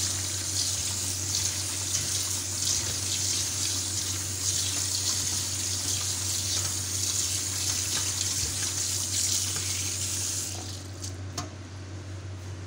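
Cold tap water running into a metal colander of boiled penne in a stainless steel sink, with hands turning the pasta under the stream; the water stops about ten seconds in. A steady low hum runs underneath, and a few faint clicks follow near the end.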